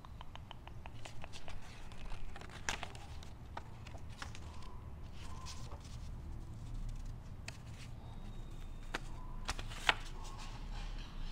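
Paper being handled: a note card and book pages rustling and crinkling, with scattered small clicks and taps, including a quick run of little clicks in the first second. A steady low rumble sits underneath.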